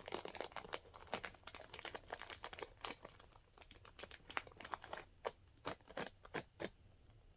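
Snack packaging crinkling and crackling as a box of Pocky chocolate biscuit sticks is opened. The crackles come thick and fast at first, then thin out to scattered clicks about five seconds in.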